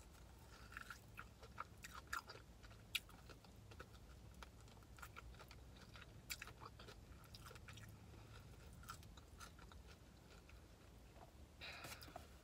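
Faint close-up sounds of a person biting into and chewing a piece of fried chicken: scattered small mouth clicks and crunches, over a low steady hum.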